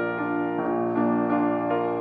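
Grand piano playing a slow solo piece, held notes and chords with a new one coming in about every half second.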